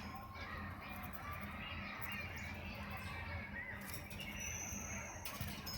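Budgerigars chirping softly with a few short high chirps and clicks, over a steady low hum.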